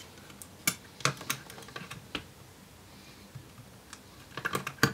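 Scattered light clicks and taps of a 2.5-inch drive's metal mounting bracket against the laptop chassis as the drive is handled and fitted into its bay, with a quick run of clicks near the end.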